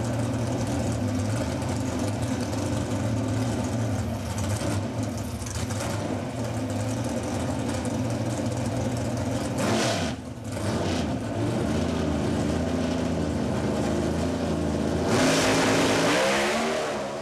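Pro Modified doorslammer drag car's engine running at the starting line: a steady, rough idle, a brief dip and climb in revs about ten seconds in, then revving up louder near the end.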